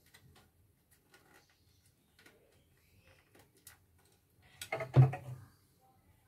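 Scattered light clicks and taps of the plastic housing of a portable embroidery machine as its cover is handled and fitted, with a louder bump about five seconds in.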